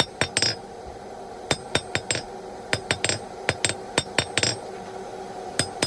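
Hand hammer striking hot steel bar stock on an anvil, drawing out a tapered point: quick runs of three or four blows with short pauses between them, the anvil giving a bright ring on some strikes. A steady hum runs underneath.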